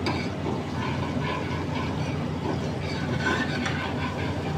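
Steady low rumble of commercial kitchen equipment, with a sharp click at the start and light scraping and clinking of a metal spoon stirring garlic in oil in a pan on a gas burner.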